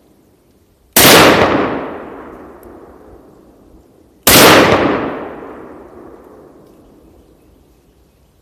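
Two shots from an SKS semi-automatic rifle firing 7.62×39 mm rounds, about three seconds apart. Each shot is followed by a long echo that dies away over a few seconds.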